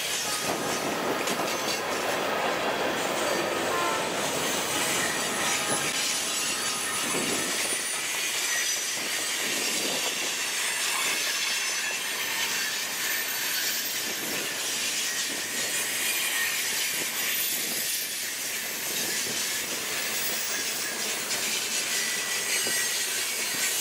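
Freight train cars rolling past: a steady rumble of steel wheels on rail, with thin high-pitched wheel squeal and occasional knocks.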